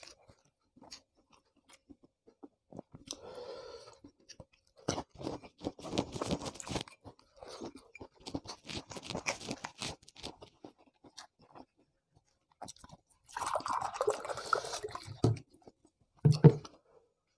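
A person chewing food close to the microphone, with irregular crunching and smacking. There is a louder, longer noise about thirteen seconds in and a short, loud, low sound near the end.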